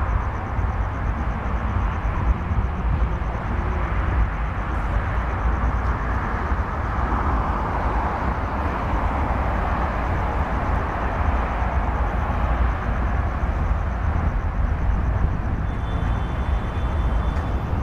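Jet airliner on approach, a steady engine rush that swells about halfway through and eases toward the end, over a heavy low rumble of wind on the microphone.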